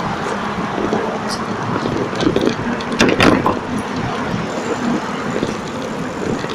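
Bicycle rolling over a tiled sidewalk, rattling and knocking over the paving joints, with street traffic behind it. A louder clatter comes about three seconds in.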